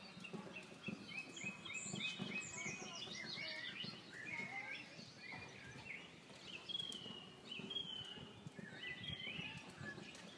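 Wild songbirds chirping and singing over steady outdoor background noise. About two seconds in there is a quick run of short repeated notes, and whistled rising and falling phrases follow later. Soft, irregular low thumps sit underneath.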